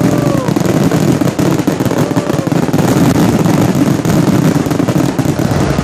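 Fireworks display going off in a dense, continuous barrage of bangs and crackle, with a couple of short falling whistles near the start and about two seconds in.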